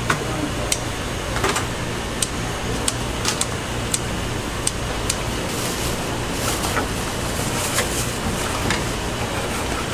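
Snack-stall kitchen noise: a steady hiss and low hum, with scattered sharp clicks and taps of serving utensils.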